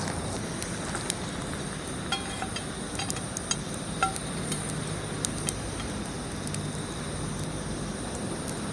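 Skillet cooking over a wood campfire: a steady sizzle and crackle with scattered sharp pops, and a few light metallic clinks about two to four seconds in.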